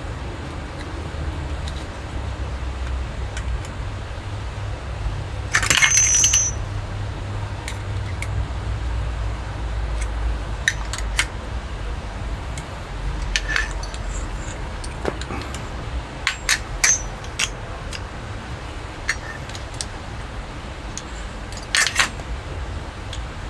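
Metal faucet parts clinking and knocking as an old, leaking tap is taken apart: a scatter of sharp clinks, the loudest about a quarter of the way in and near the end, over a steady low rumble.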